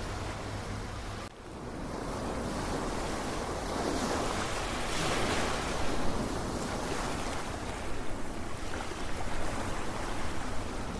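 Ocean waves washing in as a steady surf, with a wave swelling up about halfway through.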